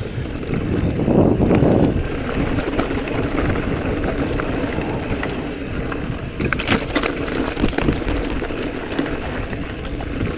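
Giant Trance E+ Pro 2 electric mountain bike riding a dirt trail: a steady rush of tyre, rattle and wind noise, with a louder swell about a second in and a few sharp clacks around the middle.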